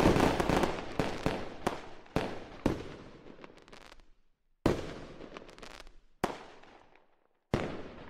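Fireworks exploding: a quick run of sharp bangs over the first few seconds, then single bangs about a second and a half apart, each trailing off in crackle.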